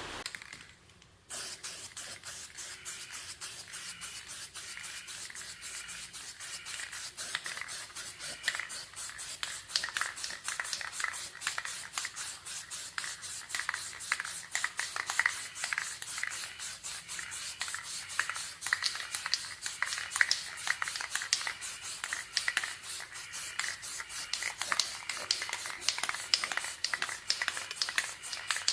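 Hand sanding: quick, even back-and-forth strokes of sandpaper rubbing on a plastic motorcycle side fairing panel, starting about a second in after a short quiet gap.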